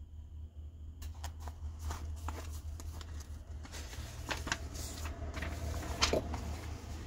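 Paper pages of a booklet rustling and crackling as they are handled and a fold-out page is opened out, with a run of sharp crinkles starting about a second in. A steady low hum sits underneath.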